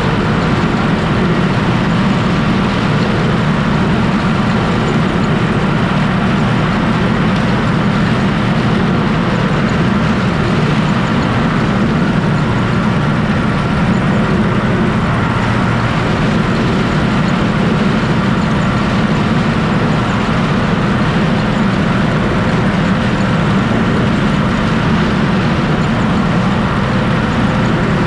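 Loud, steady running of a Universal U650 tractor's diesel engine and the trailed Zmaj-Zemun 223 corn picker it drives, working through a row of dry corn.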